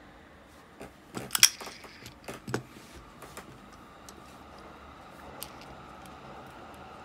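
Sharp metal clicks and light knocks as an Abu Garcia Ambassadeur 5500C baitcasting reel is picked up off a wooden table and handled, a quick cluster of them in the first couple of seconds, then only a few faint ticks.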